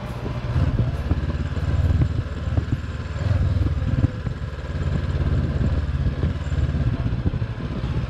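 Honda CB500X parallel-twin engine running steadily as the motorcycle rolls slowly along a dirt track.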